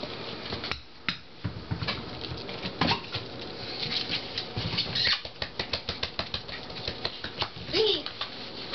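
Shetland Sheepdog puppies scampering and scrabbling in play: a run of quick, irregular clicks and taps from their paws and claws, busiest in the second half. A brief rising-and-falling voice sound comes near the end.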